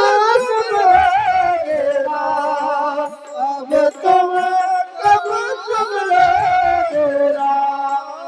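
Devotional bhajan singing: a long, wavering melodic line without clear words, with a few low mridang drum strokes underneath.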